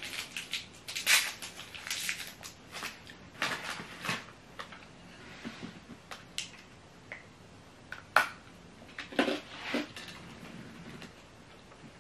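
Mouth-close eating sounds: a hard peanut-butter candy being bitten into and chewed, a run of short clicks and crunches with a small plate handled. Busiest in the first four seconds, then a few isolated sharp clicks.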